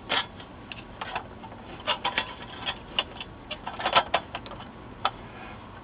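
Irregular light clicks and taps from handling and fitting the thin metal RF shield onto the LCD monitor's assembly.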